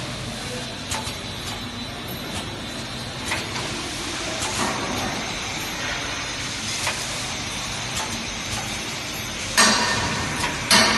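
Paper cup automatic flow-wrapping line running: a steady mechanical hum with light clicks every second or so. Two loud clatters come near the end.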